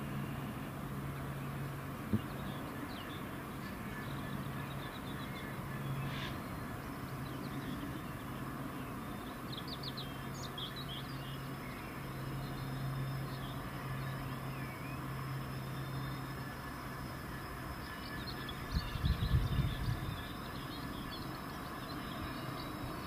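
Small birds chirping in short scattered phrases over a steady low hum. A single click comes about two seconds in, and a brief low rumble near the end.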